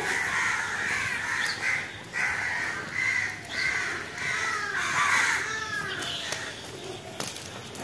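Several crows cawing over and over, their harsh calls overlapping, thinning out near the end.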